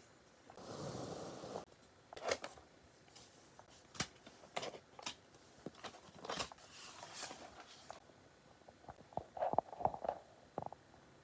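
Hands handling iPad packaging: a brief brushing slide about a second in, then scattered single taps and clicks, and a quick run of small taps and crinkles near the end.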